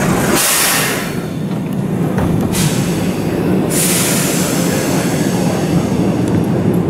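Toyama Chihō Railway 14760-series electric train standing at the platform, humming steadily, with three loud hisses of compressed air let out, the first as the door slides open.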